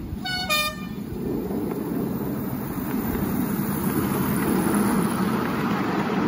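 Miniature railway locomotive sounding a short two-note horn toot, the second note lower. Then comes a steady rumble of the train's wheels on the track, growing louder as the loaded passenger carriages run close past.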